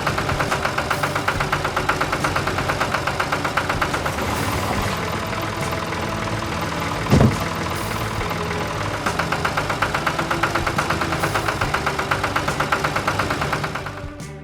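Cartoon sound effect of a farm vehicle's engine chugging steadily with a rapid, even pulse, with a short loud low thump about seven seconds in; the engine fades out near the end.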